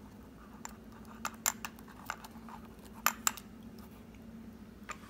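Scattered short plastic clicks and taps from a tiny whoop micro quadcopter being handled while its battery connector is unplugged; the two loudest clicks come about three seconds in.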